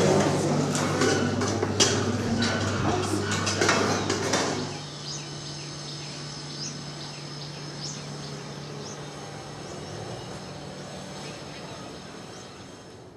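Steel serving pans and utensils clinking and clattering over a steady low hum for about five seconds. Then the clatter stops and gives way to quieter outdoor background with scattered short bird chirps.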